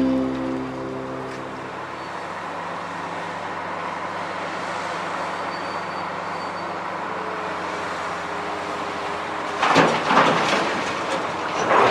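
Narrow-gauge train creeping forward behind its diesel locomotive, giving a steady rolling rumble. About ten seconds in comes a louder stretch of rattling noise.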